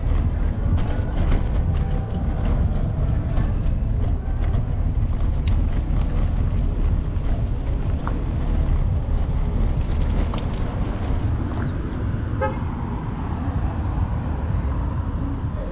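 City street traffic with a steady low rumble, and a vehicle horn tooting.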